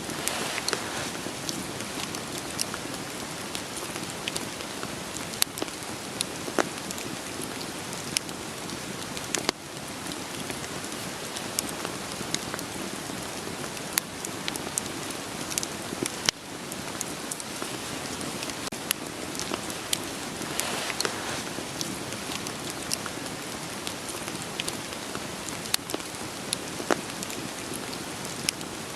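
Steady rain falling, with a wood fire crackling and popping in sharp, irregular snaps.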